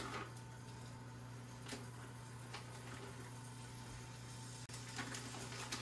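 Raw sausage links being laid one by one into a small oiled frying pan: a few faint light clicks and taps over a steady low hum.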